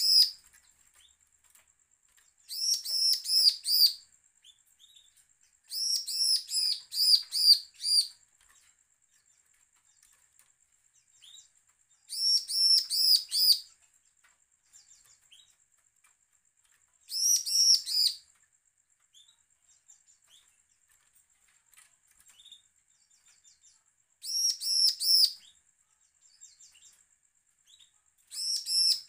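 Bar-winged prinia (ciblek) singing in short bursts of four to eight sharp, ringing high notes, a burst every few seconds. It is a challenging, threatening song of the kind used as a lure to set other ciblek singing.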